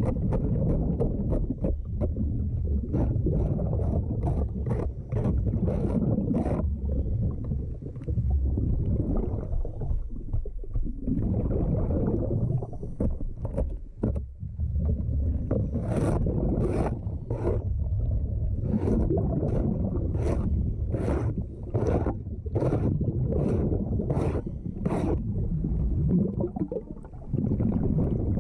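Diver's hand scraper working marine growth off a timber boat hull underwater, in runs of quick strokes, about two a second near the middle and later on, over a steady low rumble, heard through an underwater camera.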